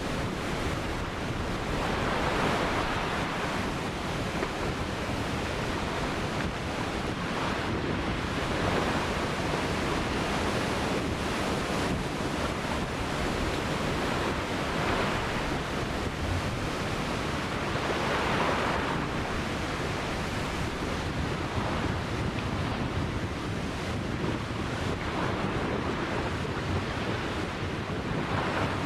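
Ocean surf washing onto a beach: a continuous rush of water with waves swelling and breaking every few seconds.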